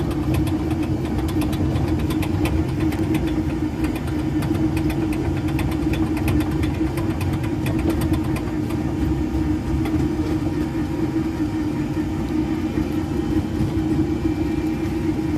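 Motor of a ride-on tractor ride vehicle running steadily as it drives along its track: a constant hum over a low rumble, with light rattling throughout.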